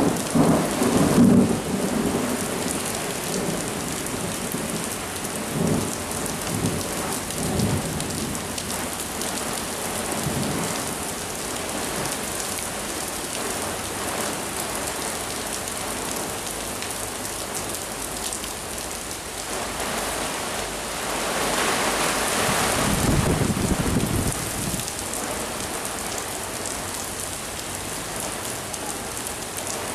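Heavy thunderstorm rain pouring steadily, with thunder rumbling loudest in the first couple of seconds and more faintly a few times after. About twenty seconds in, the storm swells louder for several seconds with another low rumble.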